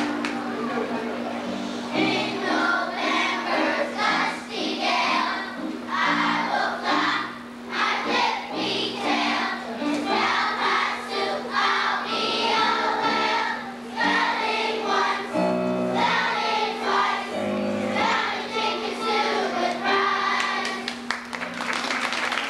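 A choir of young children singing a song with piano accompaniment; applause starts near the end.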